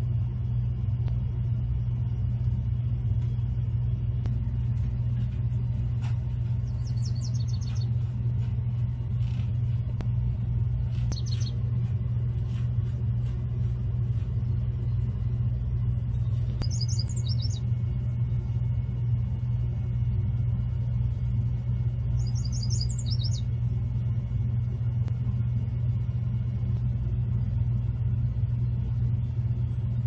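A songbird singing short, high, trilled phrases four times, a few seconds apart, over a steady low rumble that runs underneath throughout and is the loudest sound.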